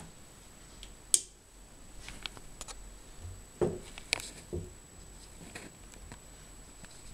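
Handling sounds from a wooden magnifier desk lamp. There is one sharp click about a second in, then a few knocks and clicks around the middle as the jointed wooden arm and the magnifier head are moved.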